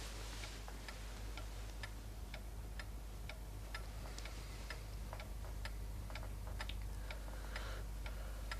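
A clock ticking steadily, about three ticks a second, over a low steady hum.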